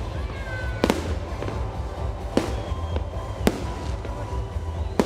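Fireworks display: sharp bangs of shells bursting, four in about five seconds, with thin whistling tones gliding between them over a steady low rumble.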